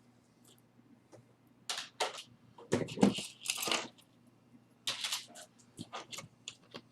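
Costume jewelry clinking and rattling as it is handled, in a few short bursts of clicks with lighter ticks between.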